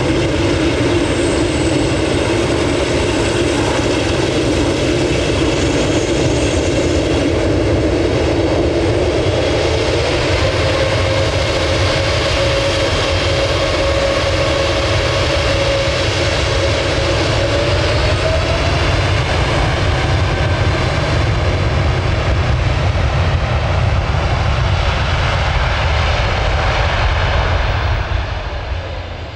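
Boeing 747-8F's GEnx-2B turbofan engines running loud and steady at close range, a jet whine over a deep rumble. A humming tone climbs in pitch a little past halfway, and the sound drops off just before the end.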